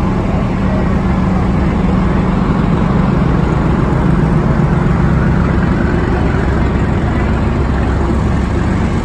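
Diesel locomotive and container freight train passing close alongside, a steady loud low engine drone with running noise, heard from inside a passenger carriage. The drone eases near the end as the container wagons roll past.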